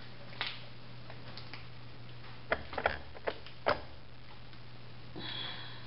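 A steady low hum with a few irregular sharp clicks and taps, most of them bunched together about halfway through, and a short hiss near the end.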